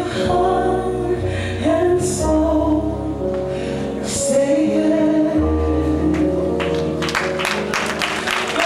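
Gospel song with a woman singing over held low bass notes; about seven seconds in, applause breaks out over the end of the song.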